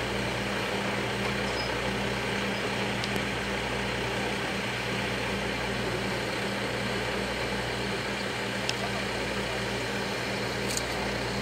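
Steam locomotive C58 239 standing with steam up: a steady hiss with a low, even hum underneath.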